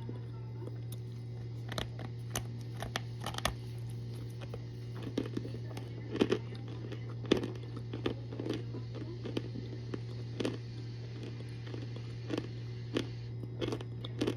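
Baked cornstarch brick being bitten and chewed: irregular crisp cracks and crunches, a few sharper ones about six and seven seconds in, over a steady low hum.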